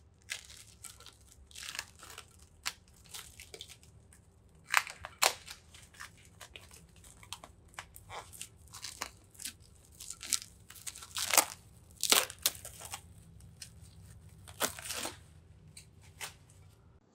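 Plastic cling film crinkling and crackling as it is peeled and pulled off a glass baking dish, bunching up as it clings. The crackles come in irregular sharp clusters, the loudest a few seconds in, in the middle and near the end.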